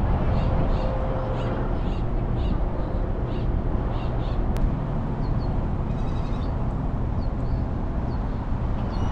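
Car idling, heard from inside the cabin as a steady low rumble, with birds calling outside: quick runs of short calls several times a second in the first half, then single short falling chirps about once a second.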